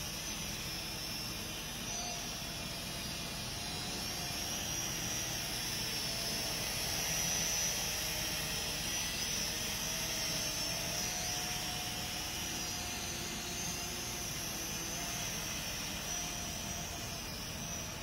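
Kolibri Hellfire quadcopter drone in flight, its motors and propellers giving a steady high whine whose pitch wavers up and down as it manoeuvres.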